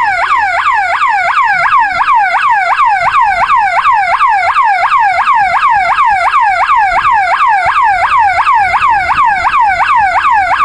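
12-volt alarm siren horn sounding: a loud, fast repeating wail sweeping between high and low about three times a second. It means the dual-beam sensor alarm has been triggered.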